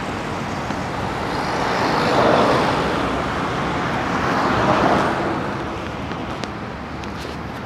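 Road traffic: cars passing close by, with tyre and engine noise swelling twice, about two and five seconds in.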